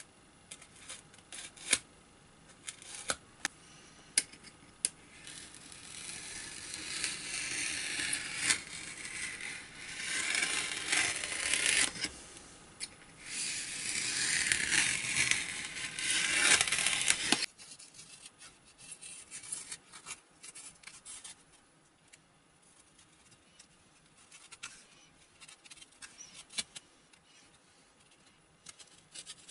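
Foam being scraped and cut along a steel ruler: three long stretches of rasping scraping in the middle, the last one stopping abruptly. Scattered light clicks and taps of hand tools come before it, and faint light ticks come after.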